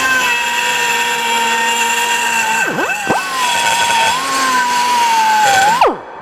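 Pneumatic die grinder with a coarse carbide burr, lubricated with WD-40, cutting into a polished aluminum carburetor hat. It makes a steady high whine that dips sharply once about three seconds in and picks back up, then slides down and stops near the end.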